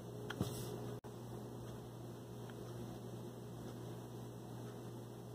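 Quiet room tone: a steady low electrical hum with faint hiss, and one brief faint sound about half a second in.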